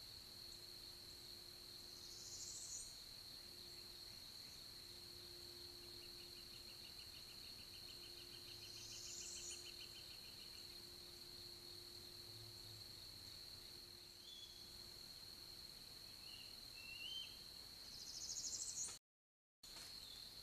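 Faint outdoor birdsong over a steady high-pitched whine: three short rising buzzy calls, and a rapid even songbird trill lasting about five seconds in the middle, with a few faint chirps later. The sound drops out completely for a moment near the end.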